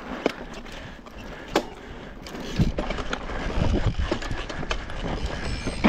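Mountain bike ridden over a rough dirt trail: tyres rumbling and the bike rattling, with a couple of sharp clicks in the first two seconds. The rumble gets louder and heavier from about two and a half seconds in as the bike rides over rougher ground.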